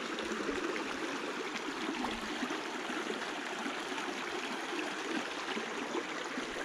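Creek water running steadily through a freshly cut muddy channel, a continuous rushing trickle over mud, logs and debris as dammed-up water drains away.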